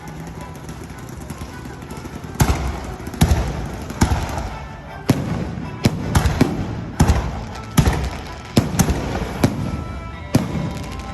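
Fireworks going off: about a dozen sharp bangs at irregular intervals, some in quick pairs, each trailing off in an echo.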